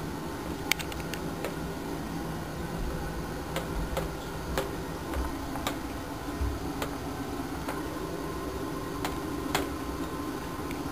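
Steady low hum with about ten sharp clicks at irregular intervals, the loudest under a second in and near the end.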